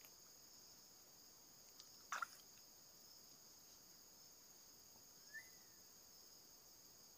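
Faint steady high-pitched insect drone, with one short sharp sound about two seconds in and a brief chirp that rises and falls about five and a half seconds in.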